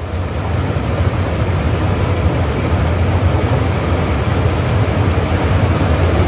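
Two coloured pencils shading rapidly on a drawing pad: a steady, dense scratching noise with a strong low rumble.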